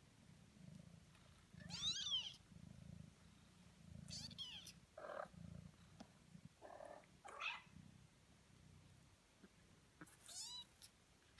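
Young kittens, about 18 days old, giving a handful of short high-pitched mews, with a low purr pulsing underneath.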